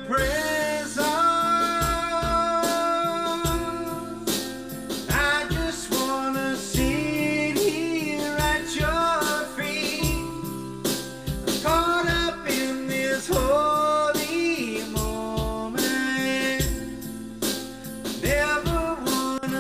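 A worship song playing: a singer's voice over a full band with drums.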